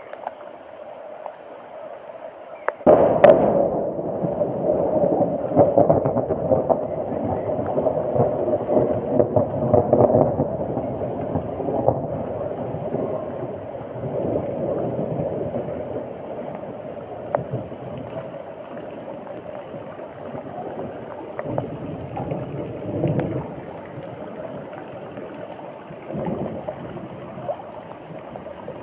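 Moving floodwater sloshing and gurgling. It gets suddenly louder about three seconds in, with a few scattered knocks.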